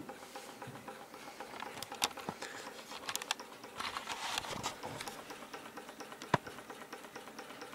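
Small DMF model Stirling hot-air engine, water-cooled and fired by an alcohol burner, running freshly started once its hot end has warmed, with a rapid, even mechanical clicking. A few louder knocks and a brief rustle come about halfway through.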